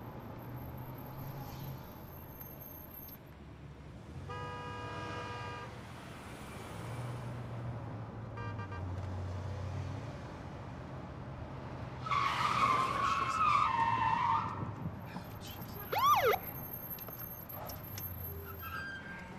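Police patrol car driving with its engine running steadily, sounding short siren and horn blasts to pull over the car ahead: a brief held tone about four seconds in, a louder blast a few seconds later, and a quick rising-and-falling whoop near the end.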